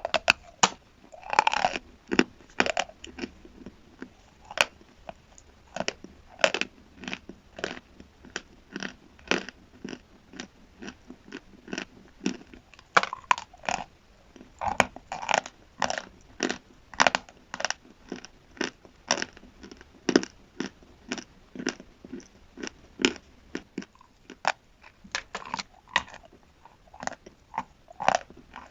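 A person chewing chalk and chalk paste: a steady run of crisp crunches, about two a second.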